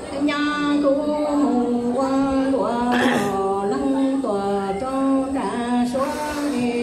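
Amplified singing: a single voice holds notes in short phrases that step up and down in pitch, with a couple of brief hissy noises about halfway and near the end.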